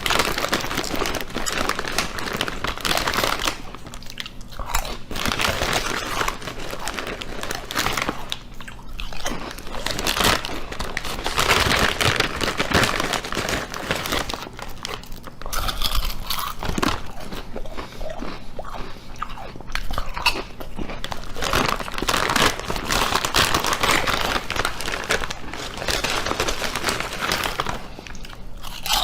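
A meme sound effect: a long, loud run of dense, irregular crackling and crunching clicks that breaks in suddenly out of silence.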